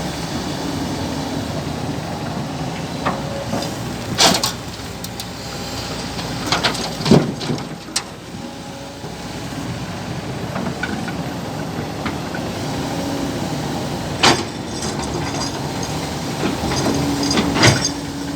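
Kobelco hydraulic excavator running steadily as it works, its engine and hydraulics droning, with a few sharp knocks spread through the work cycle.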